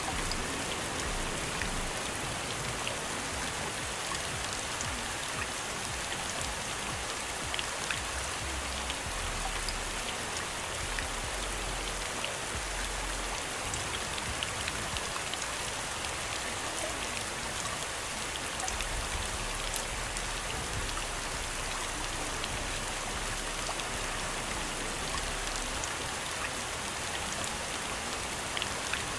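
Steady rain: an even hiss with scattered drops tapping.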